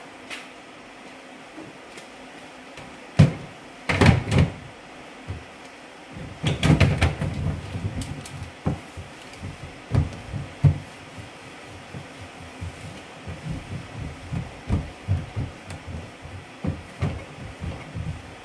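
Plastic storage-box lid being put on and pressed down, with a few sharp knocks a few seconds in and a clatter of knocks about halfway. A hand then rubs over the plastic lid in short, uneven strokes.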